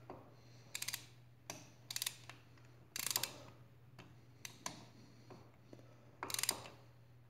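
Ratchet wrench clicking in short runs of quick clicks, about every second, as it snugs down engine cylinder head nuts evenly before final torquing.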